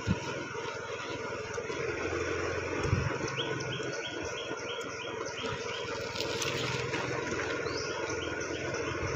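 A small motor vehicle's engine running steadily at low speed. A bird calls in a quick run of short chirps, about four a second, from about three to five and a half seconds in.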